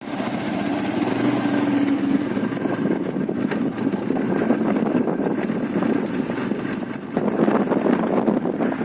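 Vehicle engine running with road noise while driving on a highway, steady, with a short dip about seven seconds in before it gets louder again.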